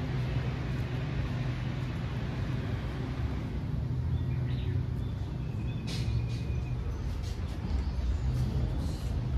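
A vehicle running with a steady low rumble, with a couple of brief high tones around the middle.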